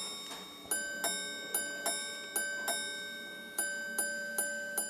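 Minute repeater watch chiming: its hammers strike two tuned gongs, each strike ringing on, in pairs about a third of a second apart, amplified in a wooden sound box with resonating strings. A second, lower gong joins about a second in.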